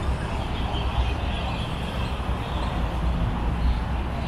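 Outdoor street ambience with a steady low rumble.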